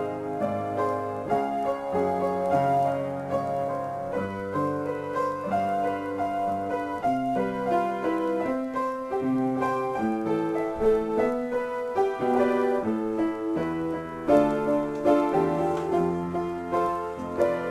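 Solo piano improvisation: chords and melody notes played at a gentle, even pace, each note left ringing.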